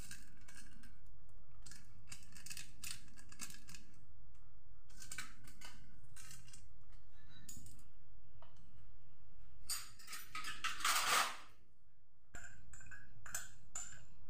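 Small seasoning sachet being handled and emptied over a bowl: scattered crisp crinkling and scratching strokes. A longer, louder rustle comes about ten seconds in.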